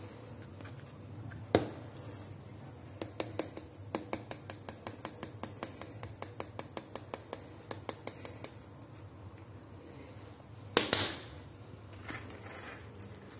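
A plastic spice shaker shaken over a frying pan, clicking in a quick run of about four clicks a second for several seconds. Near the end comes one brief louder rustle of handling.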